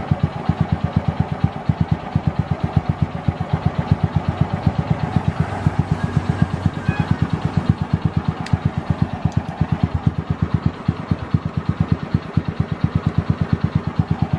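Motorcycle engine idling steadily, its exhaust beating in even pulses at about seven a second.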